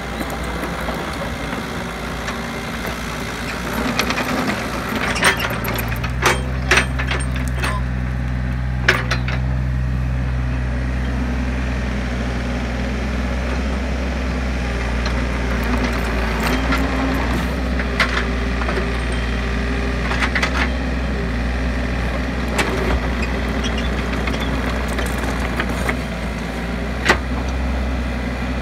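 Kobelco mini excavator's diesel engine running steadily, picking up revs about four seconds in as it crawls over a dirt mound, with sharp clinks and knocks every few seconds, most of them between about five and nine seconds in.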